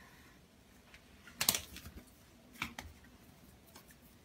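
Two Sphynx cats scuffling on a tile floor: a few sharp taps and clicks of paws and claws, the loudest cluster about a second and a half in, another near three seconds.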